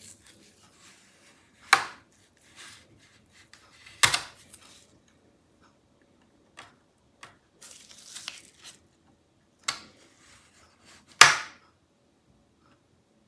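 Alienware 16X Aurora bottom panel's retaining clips snapping loose as a plastic pry tool works along the side seam: four sharp clicks, the loudest near the end, with fainter clicks and light scraping of the tool in the seam between them.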